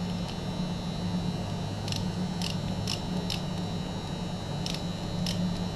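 Wrench clicking on the fuel injection pump's mounting nuts as they are locked down: a few short, irregular metal clicks, some in quick pairs, over a steady low hum.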